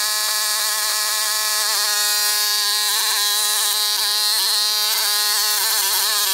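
Homemade mini excavator's small single-cylinder petrol engine, a Honda-type 11 hp or a clone, running steadily with its belt-driven hydraulic gear pump. The note is steady at first, then wavers in pitch from about a second and a half in as the hydraulic controls are worked and the machine slews and moves.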